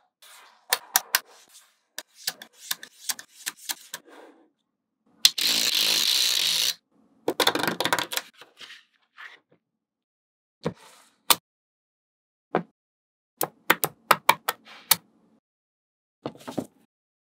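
Small magnetic balls clicking as they snap together and are pressed into place, in sharp irregular clicks with soft scraping between them. About five seconds in comes a dense, continuous rattle lasting over a second, followed by a rougher rattle.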